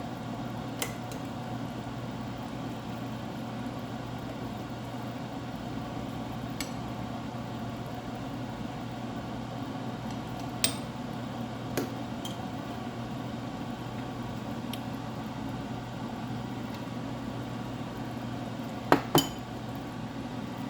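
A few sharp, widely spaced clinks of utensils against dishes, the loudest a quick pair near the end, over a steady low hum.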